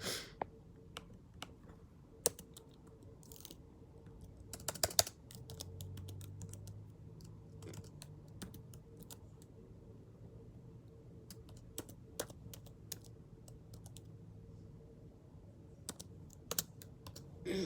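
Faint, irregular light clicks and taps, scattered and uneven, with a brief flurry about five seconds in and a low hum under the middle stretch.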